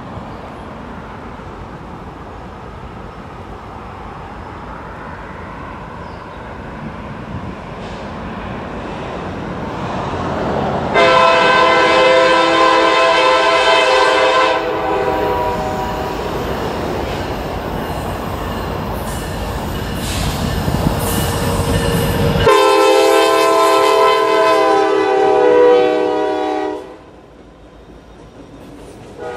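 Norfolk Southern diesel freight train approaching with a rumble that grows louder. The lead locomotive's air horn sounds two long blasts, one about 11 seconds in and one about 22 seconds in, each lasting three to four seconds.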